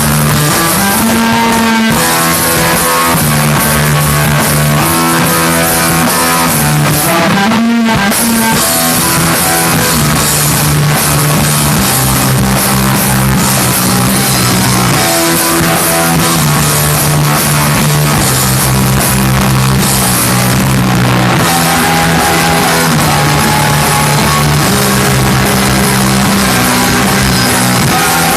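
Rock band playing loud: electric guitars chording over bass guitar and drums, with a short break and a bending guitar note about eight seconds in.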